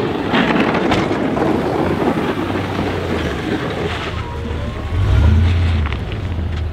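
Pickup truck's front plow blade pushing heavy wet slush, a steady rushing scrape. About five seconds in, the truck's engine rumble comes up low and steady as it pulls away.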